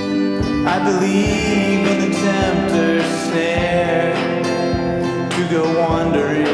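Band music in a slow country style: guitars over a steady beat of about one low drum thump a second, getting fuller about a second in.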